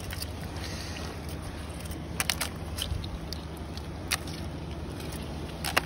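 Mussel shells clicking against each other as they are picked over by hand from a pile, a handful of sharp clacks, over a steady low drone.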